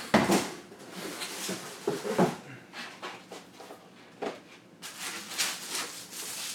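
A heavy chrome metal lamp base being handled and set down on a wooden floor, with a few sharp knocks, then rustling and scraping of cardboard and foam packaging.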